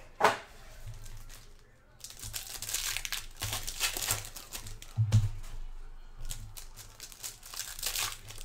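Foil wrappers of Bowman baseball card packs crinkling as hands handle them and tear them open, in a run of crackly bursts from about two seconds in. A sharp knock comes just after the start, and low bumps come around five seconds in.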